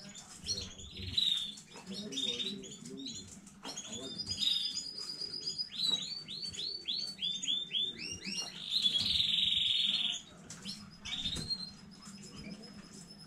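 Domestic canary singing: quick series of repeated sweeping notes, then a loud rolling trill lasting about a second and a half, a little before the end.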